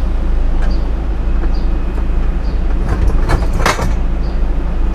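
Wooden table-top panels and a metal folding leg frame being handled and set in place to make a bed: a few sharp knocks and clatters about three seconds in, over a steady low hum.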